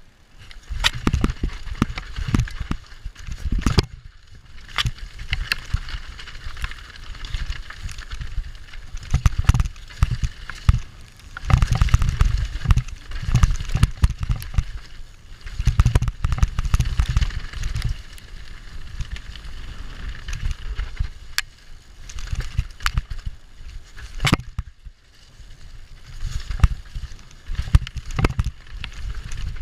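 YT Tues downhill mountain bike descending a rough rocky trail: tyres on dirt and rock, with frequent sharp knocks and rattles from the bike hitting rocks and roots, over a low rumble that swells and fades as wind hits the chest-mounted camera's microphone.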